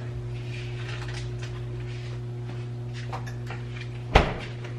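Steady low electrical hum with a few faint ticks, and one sharp knock about four seconds in.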